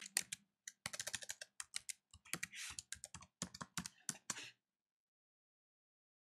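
Typing on a computer keyboard: a quick run of key clicks entering a sudo password, stopping after about four and a half seconds.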